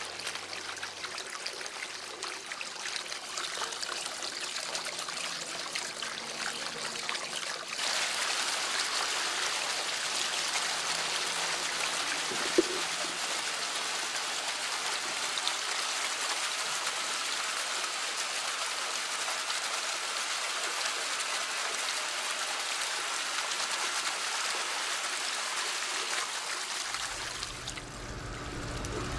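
Water flowing steadily from PVC pipe outlets over a flooded, soaked Persian rug, growing louder and brighter about eight seconds in. A single sharp click sounds a little under halfway through.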